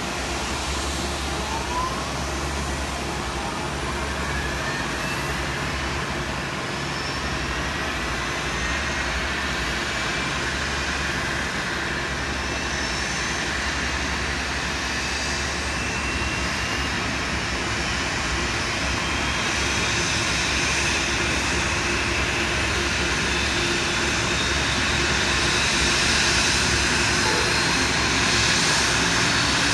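Jet airliner engines running, with turbine whines that climb slowly in pitch as the engines spool up, growing gradually louder.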